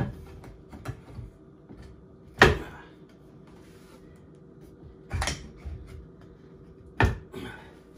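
Wooden false drawer front being pushed and knocked into a sink-base cabinet opening: four sharp knocks of wood on wood, the loudest about two and a half seconds in, with light clicks and rubbing between.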